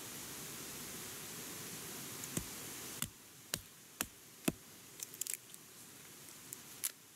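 A series of short, sharp clicks and knocks, some single and some in a quick cluster about five seconds in, over a steady hiss that drops away about three seconds in.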